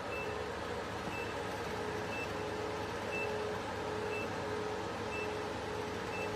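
Diode laser machine beeping: a short high beep about once a second, each beep marking a laser pulse, with a lower tone repeating alongside, over the machine's steady running hum.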